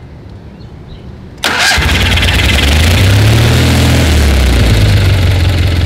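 Kohler Magnum 20 hp air-cooled twin-cylinder engine of a Simplicity Sunstar garden tractor starting: about a second and a half in, the starter turns it over briefly and it catches almost at once. It runs a little faster for a moment, then settles into a steady idle.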